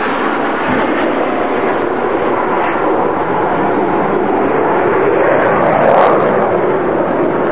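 A Tornado jet's twin RB199 turbofans heard from the ground as the jet flies past: a steady, loud rushing that swells a little about five to six seconds in.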